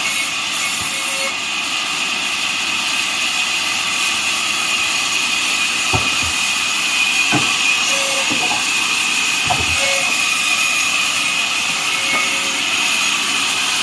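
Bandsaw mill sawing through neem wood: a steady, loud, high-pitched hiss with a whining tone through it, and a few short knocks in the middle.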